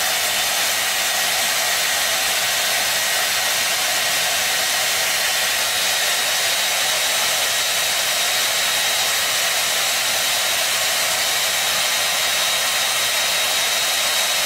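Handheld hair dryer running steadily: a constant airy rush with a faint high whine.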